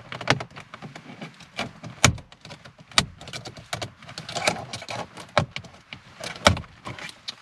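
Plastic trim removal tool prying the gear-lever gaiter surround out of a Ford Mondeo Mk4 centre console: a string of sharp plastic clicks and snaps as the retaining clips let go, the loudest about two, three and six and a half seconds in.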